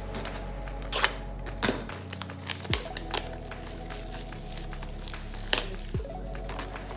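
Cardboard prerelease kit box being handled and opened: a handful of sharp taps and clicks at irregular intervals over a steady low hum.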